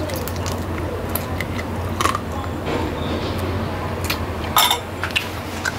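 Eating sounds from someone biting and chewing a chicken wing held in the fingers, with a few short sharp clinks, the loudest about four and a half seconds in. A steady low hum runs underneath.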